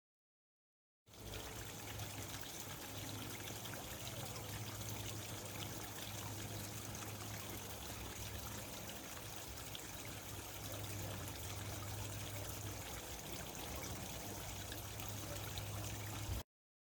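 Water trickling steadily over a low, steady hum. It starts about a second in and cuts off suddenly near the end.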